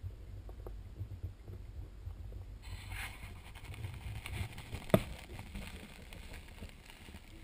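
Newborn Pembroke Welsh corgi puppies nursing pressed against the camera: low, muffled rubbing and bumping of fur on the microphone, with a rustling hiss that picks up a little under three seconds in and a single sharp click about five seconds in.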